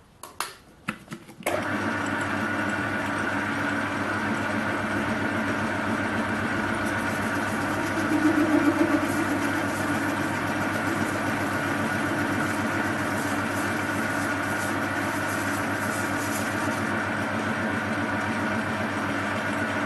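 A few clicks, then a metal lathe switches on about a second and a half in and runs steadily, motor and gearing humming while it takes a shallow cut, a little louder for a moment near the middle.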